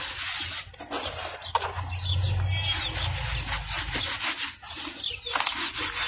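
Hands rubbing and sifting dry powdered charcoal in a plastic tub, with a continuous gritty rustle and scraping as the dust and crumbs stream back down.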